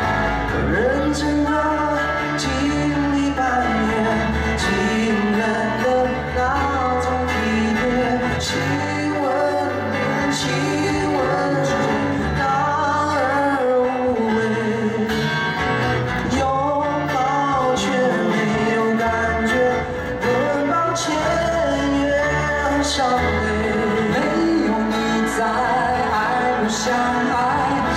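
Live band playing a song: a man singing the lead over strummed acoustic guitars, amplified through the stage sound system.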